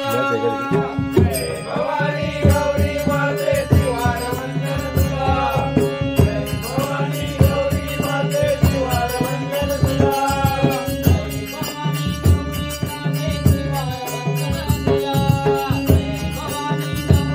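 Marathi devotional bhajan: male singing over a harmonium's held chords, with a hand-played pakhavaj barrel drum and small hand cymbals keeping a steady, driving beat.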